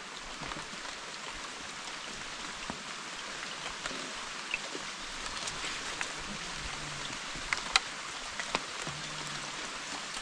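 Steady hiss of rain falling on a lake's surface, with a few sharp ticks about two-thirds of the way in.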